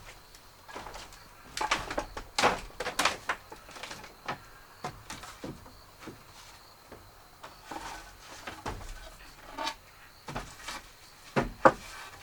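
Irregular wooden knocks and clatters, a handful of sharp strikes at uneven spacing, loudest in a cluster about two seconds in and again near the end.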